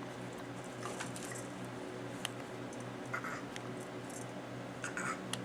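A baby fiddling with the toys on an Exersaucer activity seat: faint, scattered soft clicks and short rustles over a steady low hum.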